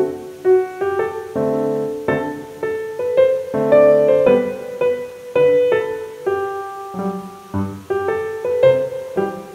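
Background music: a bright solo piano piece, a string of melody notes over chords.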